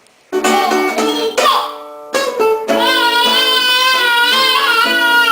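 Song with guitar accompaniment and a high singing voice, which holds one long wavering note over the second half.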